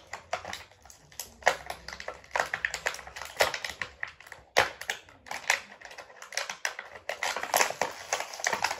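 Plastic toy packaging crackling and clicking as the figure is worked free of its box: a rapid, irregular string of small clicks and rustles, with one sharper snap about halfway through.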